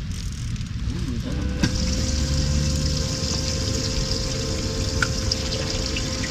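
An electric water pump on the boat switches on about a second and a half in and keeps running, a steady hum with rushing, splashing water, over a low rumble.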